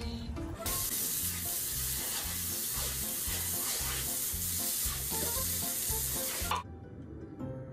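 Steady hiss of water spraying from a garden hose onto a wet concrete floor, cutting off suddenly near the end. Soft background music with a low, even beat runs underneath.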